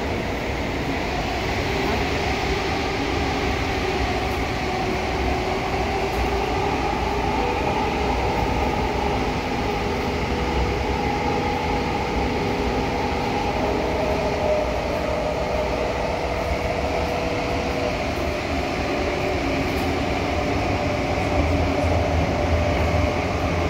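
Inside a CT251 metro train car running through a tunnel: steady rumble of the train in motion, with faint whines that shift slightly in pitch about halfway through.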